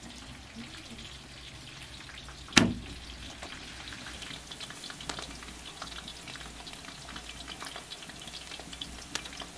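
Chopped onions sizzling and crackling in hot oil in a large iron wok, a steady frying hiss full of small pops. One sharp knock comes about two and a half seconds in.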